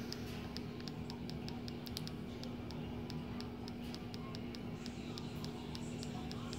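A run of quick, light clicks, about four a second, from repeated button presses scrolling up through a Kodi channel list. A faint steady hum runs underneath.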